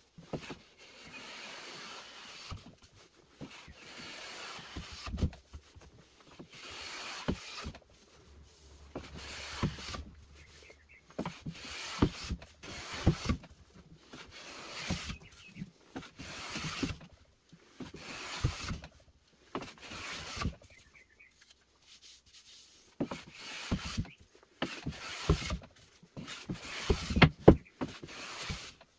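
Hand-sanding a wooden board with a sanding block: raspy back-and-forth strokes about one every second or two, with light knocks of the block against the wood. The strokes stop for a few seconds about two-thirds of the way in, then resume.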